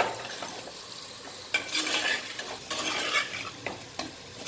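Spoon stirring boiled potato pieces into spiced masala frying in a pan: scraping strokes over a light sizzle, with two longer stirring passes in the middle and a few sharp clicks of the spoon against the pan.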